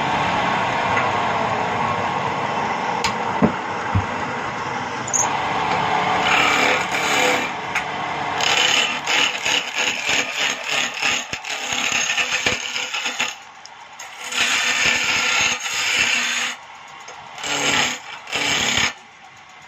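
Wood lathe spinning a square wooden cot-leg blank while a hand-held chisel cuts it round: a steady machine run overlaid from about six seconds in with a rough scraping hiss of the cutting, which breaks off briefly three times in the second half as the tool is lifted.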